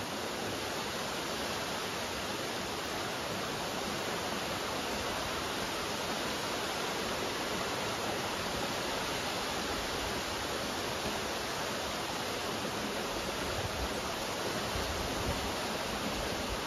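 Rain falling steadily: a constant, even hiss of drops.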